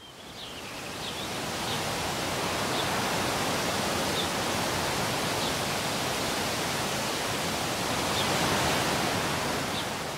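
A steady rushing noise, like a nature ambience, that fades in over the first couple of seconds and fades out near the end, with faint short high chirps every second or so.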